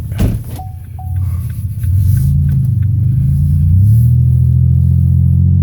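Car engine pulling away and accelerating, its low drone stepping up in pitch about two seconds in and again near four seconds. Two short high beeps sound about a second in.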